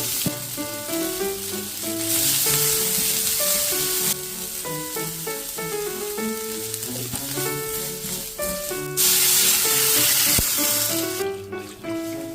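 Food sizzling in a hot pan: a steady hiss that swells loudest from about two to four seconds in and again from about nine to eleven seconds in, under light background music.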